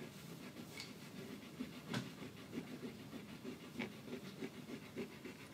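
Oil pastel being rubbed back and forth on paper, blending yellow over orange: quiet, rhythmic scrubbing strokes about three a second, with a single sharp tap about two seconds in.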